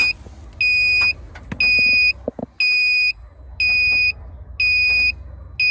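Viking 3400 peak-amp jump starter, set to 24 volts, beeping steadily: a high electronic beep about half a second long, repeating about once a second. A few light handling knocks about two seconds in.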